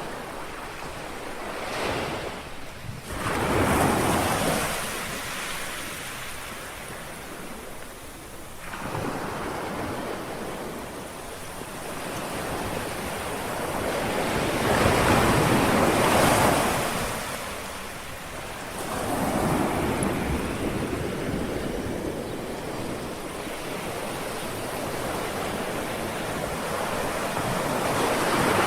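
Gentle sea waves lapping on a shore, rising and falling in a slow irregular rhythm, the largest swell about halfway through.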